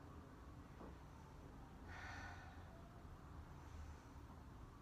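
A woman's faint, slow breaths while holding a cobra stretch: one breath about two seconds in and a softer one near the end, over quiet room tone.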